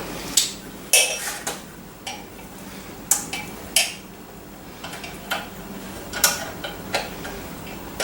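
Metal hardware and tools being handled on a workbench: a string of irregular metallic clinks and clanks.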